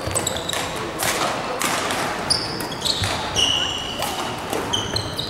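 Badminton rally sounds: sharp racket hits on the shuttlecock and several short, high sneaker squeaks on the wooden gym floor, the squeaks crowding into the second half.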